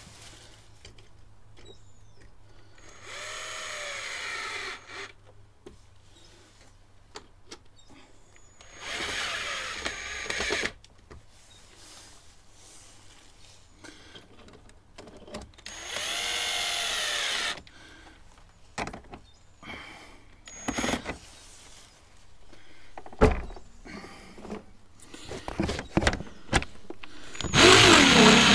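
Ryobi cordless screwdriver driving in screws in four short runs of one to two seconds each, its motor pitch bending as each screw takes up; the last run, near the end, is the loudest. Scattered clicks and knocks come between the runs.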